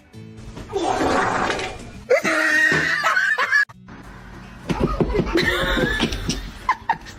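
Background music with laughter over it, and other short sounds from the clips; the sound cuts off abruptly midway.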